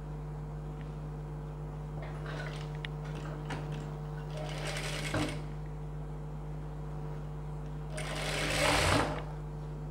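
Industrial sewing machine stitching through layers of blouse fabric in short runs, the loudest near the end, over a steady hum.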